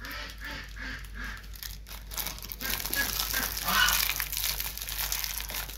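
Clear plastic packaging of an oral dosing syringe crinkling and tearing as it is twisted and pulled open by hand, getting louder from about two seconds in.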